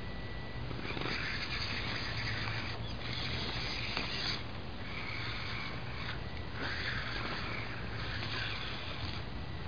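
Custom Wild Willy RC rock crawler working its way over loose rocks, its electric motor and gears whirring in short bursts of throttle, each lasting a second or two, over a low steady hum.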